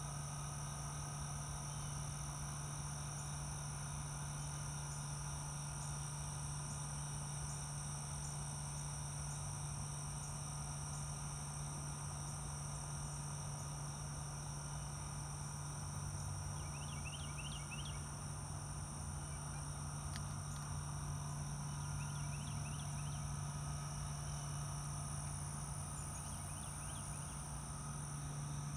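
Outdoor ambience: a steady high-pitched insect drone over a low steady hum, with a few short chirps about 17 and 22 seconds in.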